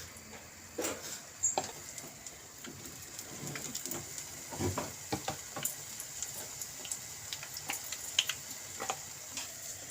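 Batter-coated green chillies (mirchi bajji) deep-frying in hot oil: a steady sizzle with scattered sharp pops and clicks.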